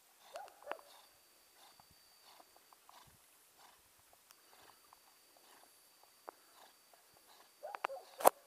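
A few short animal calls, a couple of notes about half a second in and a cluster near the end, over faint background; a sharp click just before the end.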